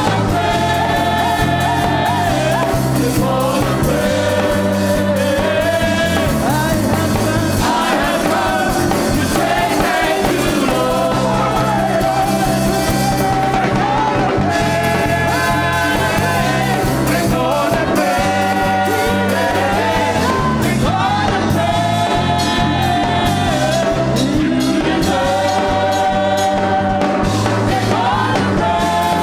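Live gospel worship song: a singer leads on a microphone over a band with drums and a steady bass line.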